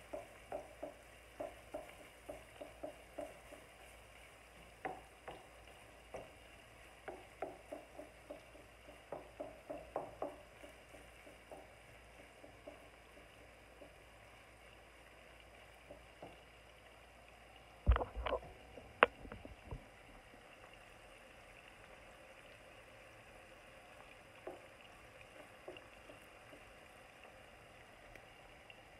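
Turkey bacon frying in a little oil in a skillet with a faint sizzle, stirred with a wooden spatula that scrapes and knocks against the pan about twice a second for the first dozen seconds. A little past halfway come a few loud sharp knocks, then only the faint frying sound.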